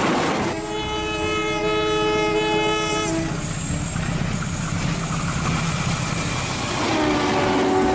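Diesel locomotive horn blowing one long blast of about two and a half seconds, followed by the rumble and clatter of the train running on the rails; the horn sounds again near the end.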